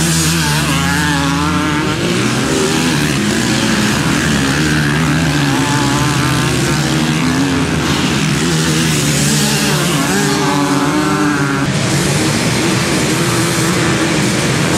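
Several motocross bikes' engines running hard, their pitch rising and falling as the riders open and close the throttle.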